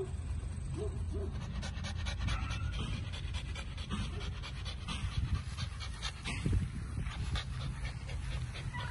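American bully puppy panting, with a few scattered clicks and knocks.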